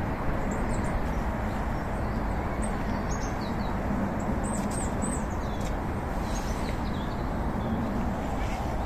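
Outdoor park ambience: a steady low rumble with small birds chirping in short, high, falling notes scattered throughout.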